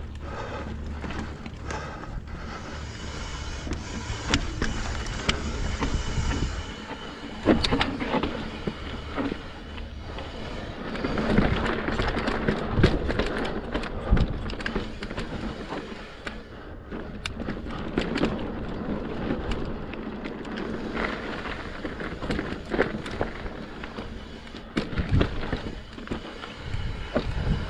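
Mountain bike rolling over rough rock, its tyres rumbling and the frame and chain rattling, with sharp knocks over bumps and drops.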